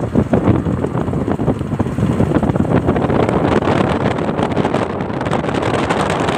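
Wind buffeting the microphone in a steady, rough rush.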